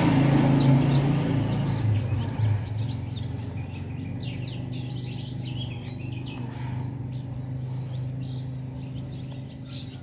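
Small birds chirping again and again in quick, high notes, over a steady low hum that is loudest at first and then fades.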